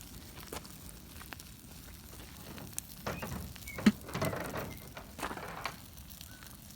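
A burning pile of trash crackling, with scattered snaps and one sharp pop about four seconds in.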